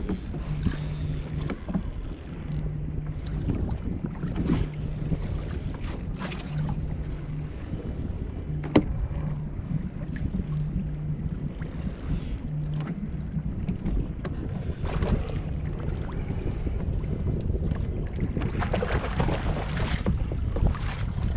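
Wind buffeting the microphone and choppy sea water slapping around a kayak on open water, with a low hum that comes and goes and a single sharp knock about nine seconds in.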